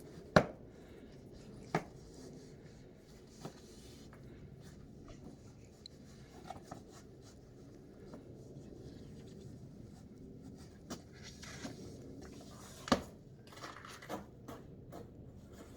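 A few sharp knocks and scuffs over faint steady background noise, the loudest about half a second in and another strong one near thirteen seconds.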